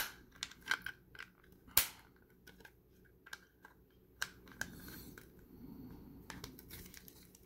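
Sharp clicks and taps of a small clear plastic support piece being pressed and fiddled onto the metal pegs of a PVC figure display base, with fingers handling the base. A dozen or so irregular clicks, the loudest at the very start and just under two seconds in.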